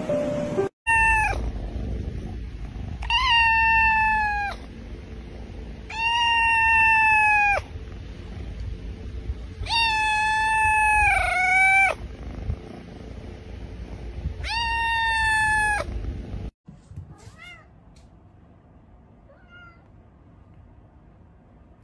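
A kitten meowing loudly and insistently, five long drawn-out calls a couple of seconds apart; the fourth wavers and dips in pitch near its end.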